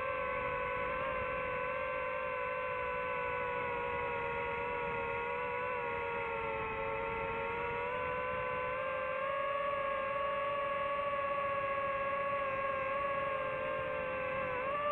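FPV quadcopter's electric motors and propellers whining in flight, as picked up by the onboard camera; the whine is one steady pitched tone that drifts slowly up and down, with a quick rise and dip near the end.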